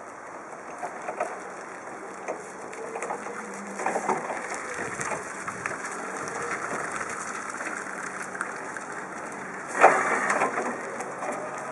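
Jungheinrich EFG 320 electric forklift driving and turning on paving stones: a faint electric drive whine that rises and falls in pitch over tyre noise, with scattered clicks and one loud clunk about ten seconds in.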